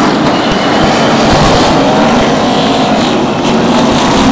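NASCAR Sprint Cup stock cars' V8 engines running together on pit road, a loud, steady drone of several cars at once.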